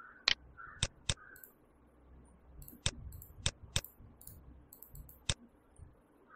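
Computer mouse button clicking: about seven short, sharp clicks at uneven intervals.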